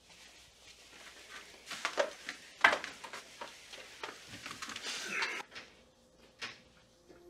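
Footsteps and handling sounds of a man walking to a desk and sitting down: several light knocks, a sharper one a little over two and a half seconds in, and a rustle around five seconds in.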